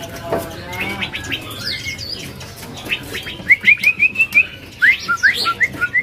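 Female white-rumped shama singing vigorously: after a few scattered chirps, a quick run of about six short rising whistled notes past the middle, then several louder upward-sweeping notes near the end.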